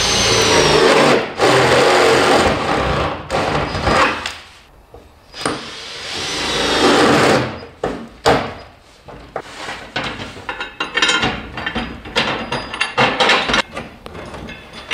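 Cordless drill boring through the steel door skin of a Jaguar XJ6 body, in two long runs, each opening with a brief falling whine, then shorter on-off bursts near the end.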